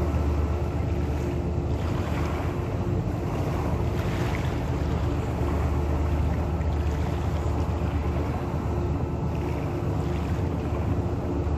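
A boat engine running steadily, a low rumble with a constant hum, under wind buffeting the microphone.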